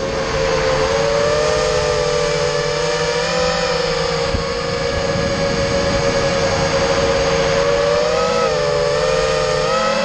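FPV racing quadcopter's electric motors and propellers whining steadily in flight, in two close tones, the pitch wavering and dipping briefly twice near the end as the throttle changes.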